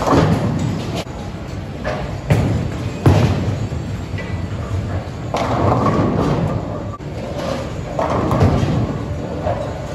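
Bowling alley noise: heavy thuds of bowling balls hitting the lanes, one near the start and two more a few seconds in, over a steady low rumble, with music playing in the background.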